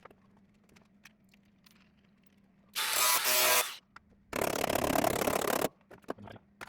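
MIG welder striking short tack welds on thin steel car-door panel: two loud crackling bursts, the first a little under three seconds in and lasting about a second, the second starting about four and a half seconds in and lasting a little longer.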